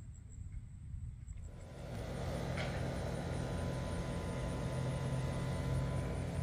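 A motor or engine comes up about a second and a half in and then runs steadily with a low hum.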